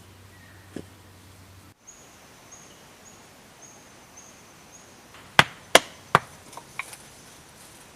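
Three loud, sharp strikes of a tool on wood about 0.4 s apart, followed by two lighter knocks, as in chopping or hammering timber.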